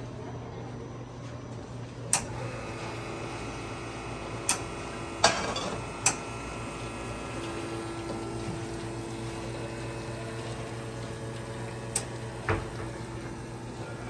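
Victoria Arduino White Eagle espresso machine running its automatic group-head cleaning cycle with a cleaning tablet in the portafilter: a steady pump hum with water moving, a steady tone joining about two and a half seconds in, several sharp clicks, and a brief rush of water about five seconds in.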